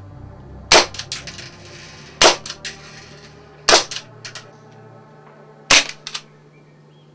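HFC HG121 gas-powered non-blowback airsoft pistol firing four single shots, sharp cracks about one and a half to two seconds apart, each followed by a couple of fainter clicks.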